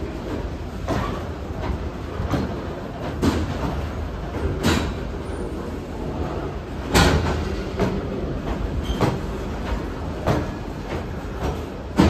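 Goods train of covered hopper wagons rolling past: a steady rumble of wheels on the rails, broken by irregular clanks and knocks, the loudest about seven seconds in.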